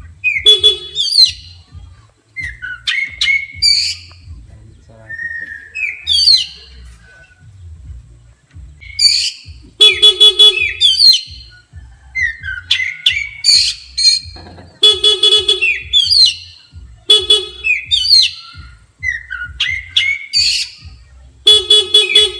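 Oriental magpie-robin (kacer) singing in loud, agitated bursts every second or two, rising whistled phrases mixed with harsh, buzzy notes: its excited response to a car horn.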